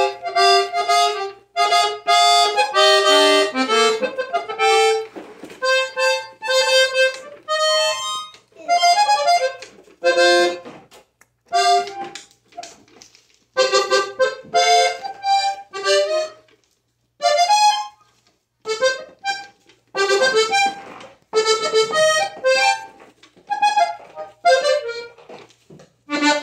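Gabanelli three-switch diatonic button accordion played haltingly by a beginner: short notes and chords pressed one after another, broken by frequent brief pauses, with no steady tune.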